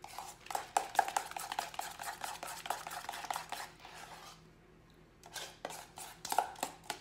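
Cake batter being mixed by hand with a utensil in a mixing bowl as cream is worked in: quick repeated clicking and scraping strokes against the bowl. They pause about four seconds in and resume about a second later.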